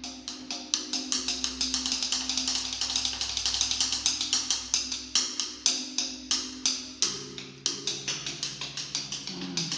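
Calcite stalactite draperies struck with two wooden sticks, played as a stone xylophone: a quick run of strikes, about four or five a second, each ringing with a pitched tone. The notes change partway through, forming a simple tune.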